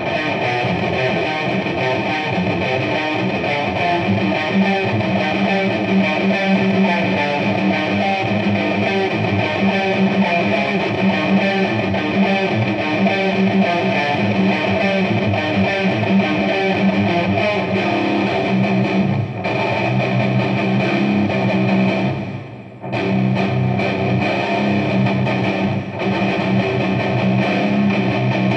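Distorted electric guitar played through a Marshall amplifier: fast, continuous death-metal riffing. About 22 seconds in the playing stops for under a second, then picks up again.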